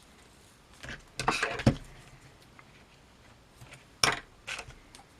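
Small hard objects handled on a workbench: a quick run of clicks and knocks about a second in that ends in a thud, then two sharp clicks about four seconds in.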